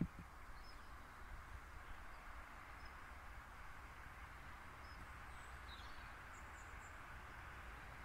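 Faint outdoor ambience: a steady hiss with a low rumble underneath and a few faint, high bird chirps scattered through it. A soft knock at the very start.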